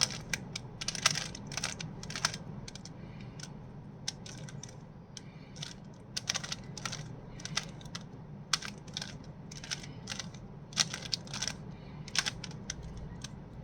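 Rubik's Cube being turned by hand: irregular plastic clicks and clacks as the layers rotate and snap into place, in quick clusters with short pauses, over a faint low hum.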